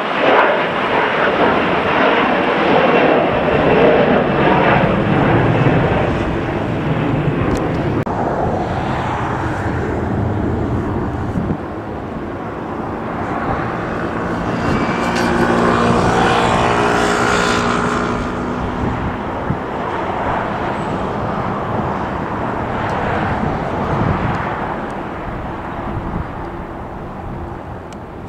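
Jet airliner passing, its engine noise swelling and then fading, with a whine whose pitch drops as it goes by a little past the middle. Wind buffets the microphone.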